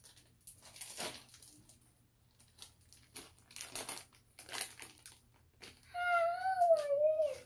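A crinkly plastic treat bag rustling and crackling in short bursts as it is handled and opened. Near the end a child sings one long wavering note.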